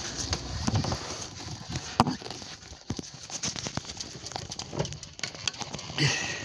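Volvo Penta marine diesel engine running in a small yacht's engine bay, heard as an uneven knocking clatter, with one sharper knock about two seconds in.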